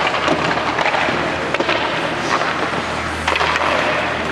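Hockey skate blades scraping and carving on ice, with scattered sharp clacks of sticks hitting pucks. A steady low hum runs underneath.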